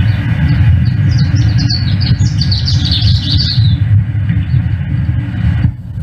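Long-billed pipit calling: short high chirps that speed up into a fast, falling twitter and stop about two-thirds of the way through, over a loud steady low rumble. The sound cuts off shortly before the end.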